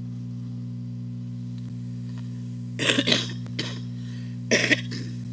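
Steady electrical mains hum, broken twice by short coughs about three and four and a half seconds in.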